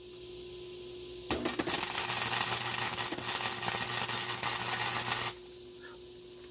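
MIG welder arc crackling steadily for about four seconds as a weld is laid on a mower deck, starting about a second in and cutting off abruptly when the trigger is released.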